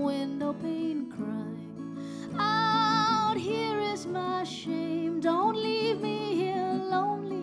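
A woman singing to her own acoustic guitar accompaniment, with a long held note that wavers with vibrato about two and a half seconds in.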